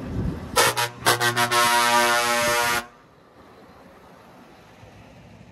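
Truck air horn sounding a rapid series of short toots, then one long blast of about a second and a half that cuts off sharply. A low engine rumble comes before the horn.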